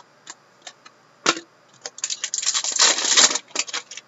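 Hockey trading cards being handled and slid against one another as hands sort through a freshly opened pack: a few light clicks, then a dense run of rustling card clicks from about two to three and a half seconds in.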